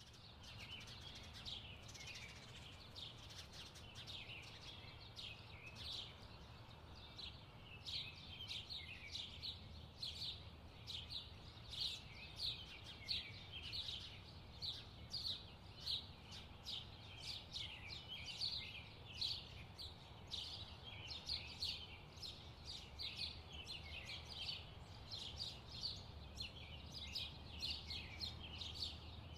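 Birds chirping: short high calls, two or three a second, over a faint steady low hum.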